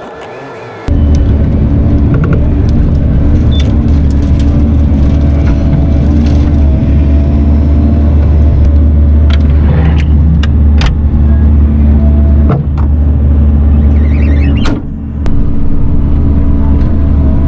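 Diesel engine of Bobcat heavy equipment running loud and steady, with scattered clicks and knocks over it; the engine sound drops briefly about 15 seconds in.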